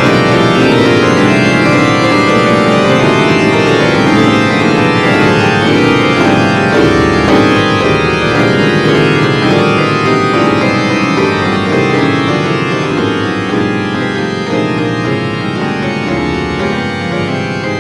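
Instrumental music with sustained keyboard-like chords and no singing, easing slightly in loudness over the last few seconds.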